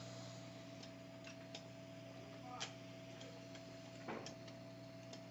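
Hot-air rework station running with a faint steady hum, while light clicks and taps come from the handpiece as its nozzle is worked loose; the sharpest clicks fall a little past halfway and near the end.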